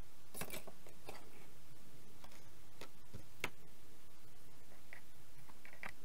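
A scattered series of small clicks and scrapes from a hand tool against the plastic housing and circuit board of a marine chartplotter, as the silicone holding the board in is cut free. The sharpest click falls a little past the middle.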